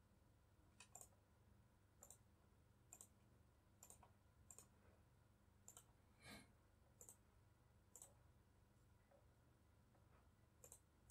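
Near silence broken by a dozen or so faint, scattered computer mouse clicks.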